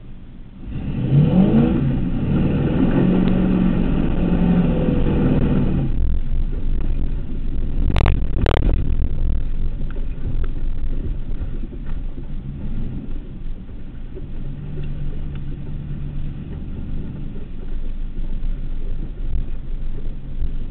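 Truck engine heard from inside the cab, revving hard with rising pitch for the first five seconds or so as it pushes through mud, then running steadily at lower load. Two sharp knocks come about eight seconds in.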